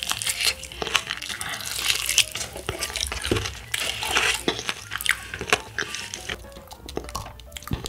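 Close-miked chewing and crunching of crispy fried chicken, a crackly, wet crunch that comes and goes, with soft background music underneath.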